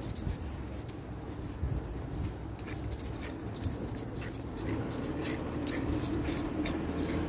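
Jagdterrier puppy trotting on a leash over paving stones: a patter of light ticks from its steps, with a few faint high squeaks in the second half. A steady low hum sits underneath.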